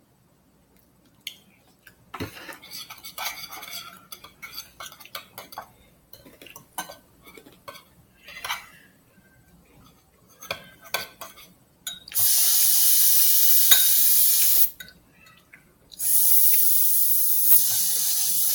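A utensil clinking and scraping in a bowl for several seconds, then two loud, steady hisses of two to three seconds each that start and stop abruptly.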